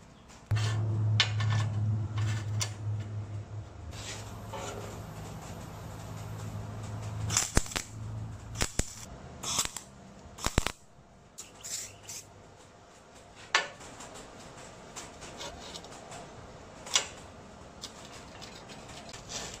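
MIG welding: a steady electrical hum from the welder with a crackling arc for about the first seven seconds. Then a series of sharp metallic clicks and clanks as clamps and steel tube are handled on the steel table top.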